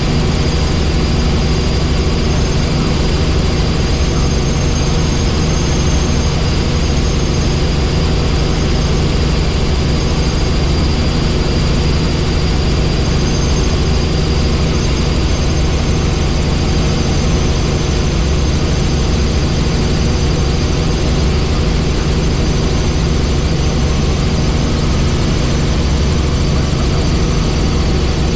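Helicopter in steady cruising flight heard from inside the cabin: a loud, unbroken drone of engine and rotor, with a thin high whine running over it.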